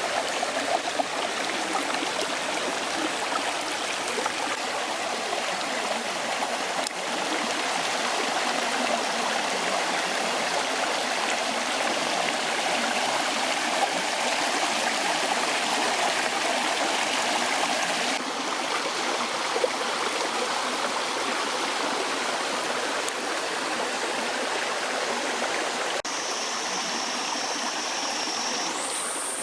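Mountain valley stream running: a steady sound of flowing water.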